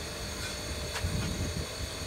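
Electric bench grinder running with no load, a steady high whine, while a metal pinion gear is handled and wiped with a cloth, giving a few light clicks and a low rumble about a second in.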